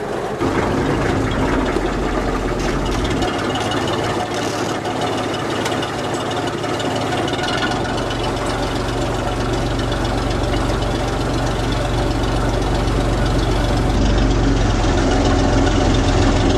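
Tour boat's engine running steadily, a low hum that grows a little louder near the end.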